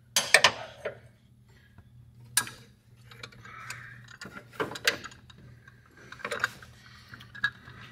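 Irregular sharp metal clicks and clinks from wrenches working a pulley puller on a power steering pump's press-fit pulley, over a faint steady hum.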